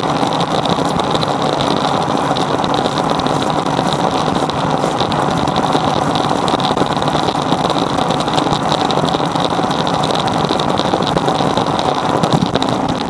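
Metal lathe running steadily under power, its chuck spinning, with a steady whine. A flat file is held against the turning workpiece partway through.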